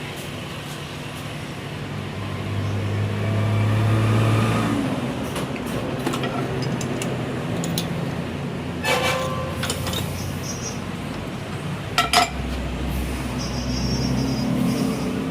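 An engine running. It rises in pitch and loudness a few seconds in, with sharp knocks about nine and twelve seconds in.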